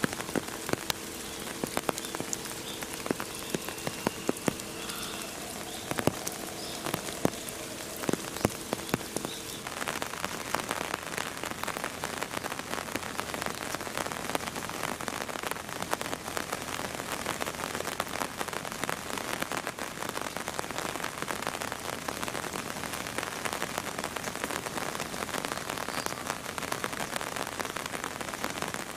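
Steady rain, with many separate drops ticking on a hard surface. A low two-note hum sounds along with it for roughly the first ten seconds, then stops, and the rain's hiss grows fuller.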